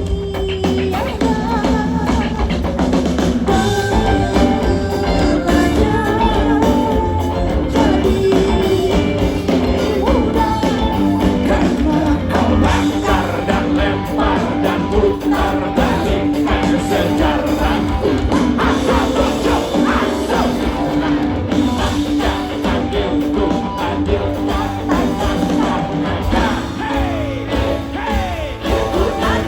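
Live rock band playing a song through a concert sound system, with drum kit, steady bass, guitar and singing.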